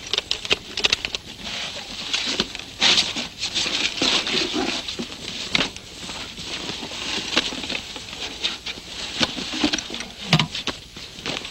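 Handling noise from a metal strongbox: scrapes, knocks and clinks as its lid is forced open and a cloth sack is taken out and handled, over a steady background hiss.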